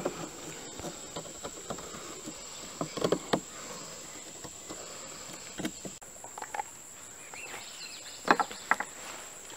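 Steady, high-pitched insect drone of crickets, with a few scattered clicks and knocks of handling, the loudest about three seconds in and again near the end.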